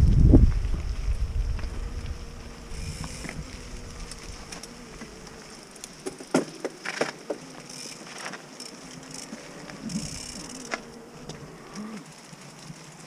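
Mountain bike on a trail: heavy wind rumble on the microphone dies away in the first two seconds. After that comes a faint steady buzzing hum, with scattered short clicks and knocks from the bike.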